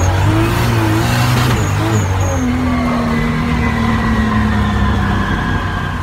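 Car engine running hard, heard from inside the cabin of a roll-caged track car, with road and wind noise; from about halfway in the engine note holds steady and slowly drops in pitch.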